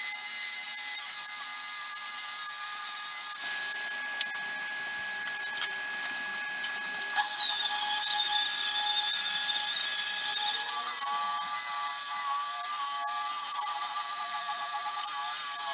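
Electric orbital car polisher with a foam pad running steadily on a painted door panel, a motor whine over a hiss. It drops quieter for a few seconds about a third of the way in, then comes back up to full level.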